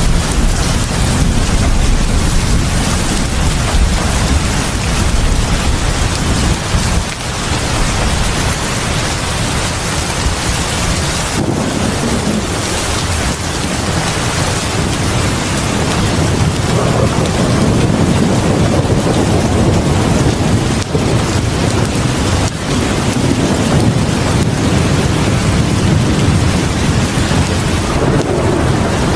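Heavy rain pouring steadily onto a porch: a dense, even hiss with a low rumble underneath.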